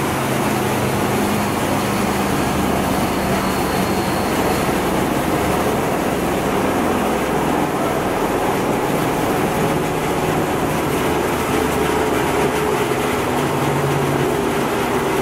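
Wood sawdust crusher running steadily, air and dust blowing through its outlet pipe and cyclone: a loud, even mechanical rushing noise with a low hum underneath.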